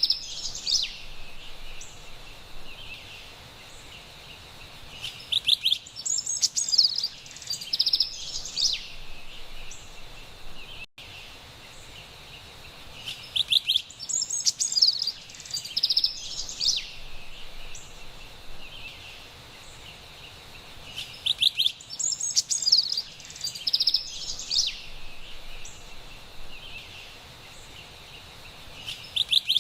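Carolina wren singing in bursts of song about every eight seconds, over a steady background hiss.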